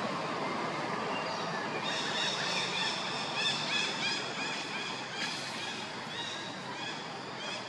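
Birds chirping: a quick run of short, high chirps, several a second, starting a second or two in over a steady outdoor background hiss.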